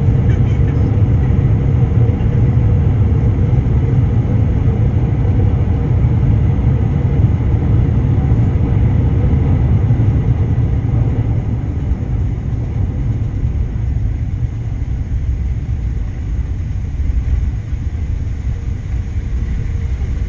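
Airbus A380 cabin noise heard from an economy seat on arrival: a loud, steady low rumble with a faint steady hum above it, easing slightly about twelve seconds in.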